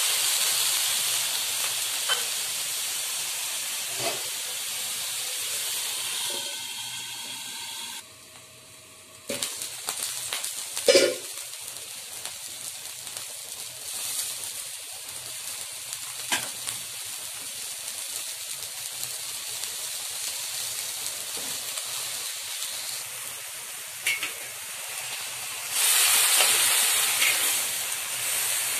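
Water hissing and sizzling in a hot wok, the steam hiss loud at first and then dying down to a quieter simmering sizzle, with a few knocks of a metal spatula against the wok. Near the end the sizzling rises loudly again as the stir-fry is turned over high heat.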